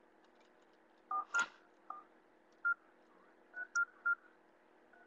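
Mobile phone keypad tones: about eight short beeps at an uneven pace as keys are pressed.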